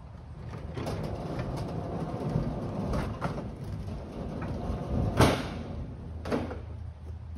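Large corrugated-metal sliding shop door being pushed open by hand, rumbling along its track with rattles. It gives a loud clank about five seconds in and another a second later.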